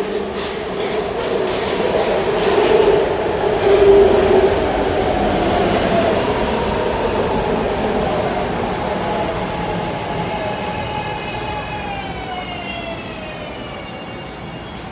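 Subway train running, with an electric motor whine that falls in pitch over the last few seconds as the train slows. The sound is loudest about four seconds in and then slowly fades.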